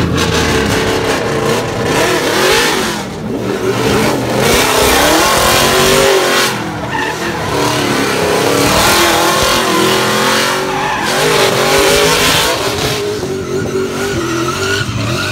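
Race car engine running at high revs, its pitch rising and falling repeatedly as it accelerates and backs off.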